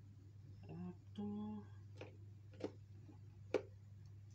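Sharp plastic clicks as the motor head of an Advance WF-1835 fan is handled and turned over, three of them in the second half, the last the loudest; a short hummed voice sound comes about a second in, over a steady low hum.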